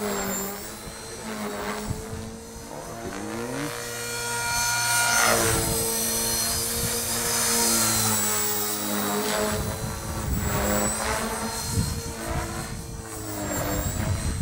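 Align T-Rex 450 electric R/C helicopter in flight: a steady whine of the motor and rotor head, with its pitch drifting up and down as it manoeuvres and swelling louder as it passes. A low rumbling noise joins in the second half.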